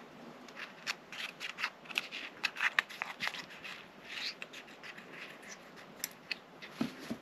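Small scissors snipping through the leathery shell of a ball python egg: a run of quick, irregular snips and crinkles.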